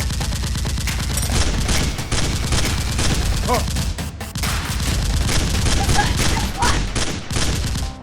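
Rapid volleys of gunfire sound effects, many shots in quick succession with brief breaks, over a steady low rumble, with a few short shouts in the middle and near the end.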